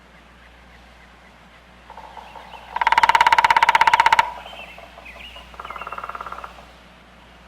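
Woodpecker drumming on wood: a fast, even roll of strikes lasting about a second and a half, starting about three seconds in, then a shorter, fainter roll, with faint bird chirps between.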